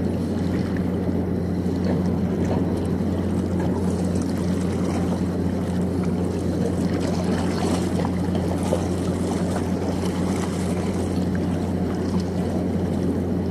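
Steady low mechanical hum, like an engine or generator running, under an even wash of wind and water noise.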